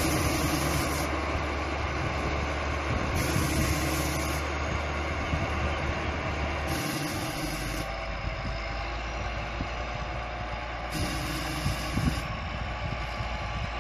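Caterpillar 140K motor grader's six-cylinder diesel engine running as it grades a dirt road, getting slowly quieter as the machine moves away.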